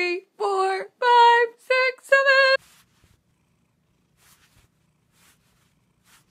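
Domestic cat purring faintly, a low steady rumble, with a few soft rustles of bedding while it is stroked.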